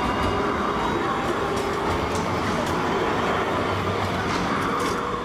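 Bombardier Flexity Swift tram rolling past on street track: a steady rumble of steel wheels on the rails, with a faint whine and light clicks.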